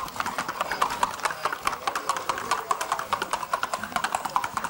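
Hooves of a Colombian paso horse on paving: a rapid, even clatter of hoofbeats, many per second, from the horse's quick, short-stepping paso gait.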